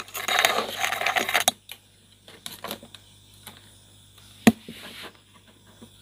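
Hands handling and connecting power supply leads to an amplifier board: about a second and a half of rustling and scraping, then scattered light clicks, with one sharper click about four and a half seconds in.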